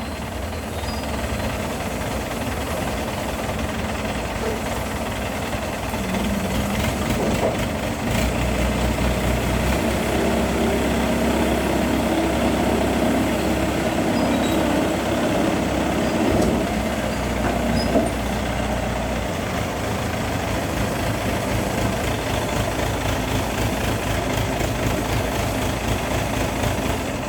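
Industrial tray washing machine running: a steady machine noise with a low motor hum that grows stronger about eight seconds in and drops back about eleven seconds later, with a single knock near the end of that stretch.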